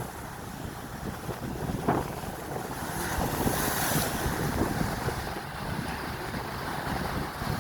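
Strong wind buffeting the microphone, with a rough low rumble, over surf washing on the beach; a brighter hiss swells about three seconds in.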